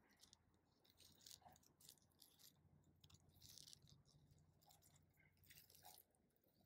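Faint, irregular crunching and clicking from a Hermann's tortoise right by the microphone, chewing hibiscus flower as it moves over gravelly ground, over a faint low steady hum.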